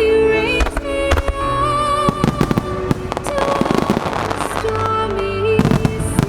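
Starmine fireworks bursting in rapid bangs and crackles, over music played for the display with a held, wavering melody.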